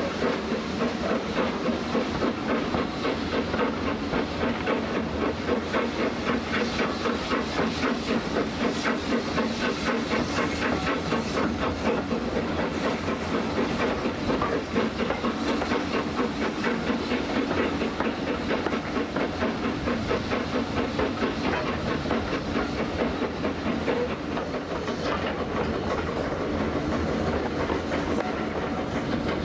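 Steam locomotive hauling a train, heard from an open carriage window: a fast, even beat of exhaust chuffs over a steady rumble of the coaches and wheels on the rails. Near the end the beat gives way to a steadier rumble.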